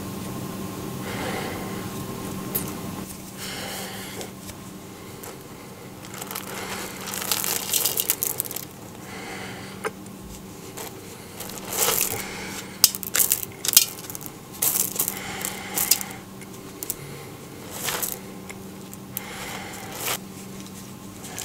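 Small black roasting pebbles in a pot clinking and clattering as a large sweet potato is turned in them and lifted out, in a series of short bursts, over a low steady hum.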